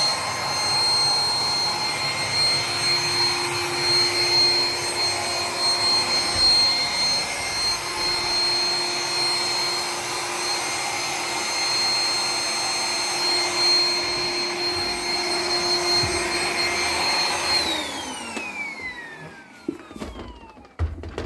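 Roomba 980 robot vacuum running with a steady whine over the rush of its suction. Near the end the motor switches off and its pitch falls away as it spins down, followed by a few light knocks.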